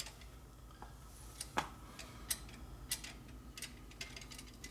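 Light, irregular metallic clicks and taps, about one every second or less, as metal parts and tools are handled while a line and fitting are worked into place on the motorcycle.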